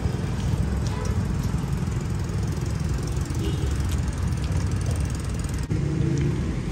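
Steady low rumble of a nearby idling engine and road traffic.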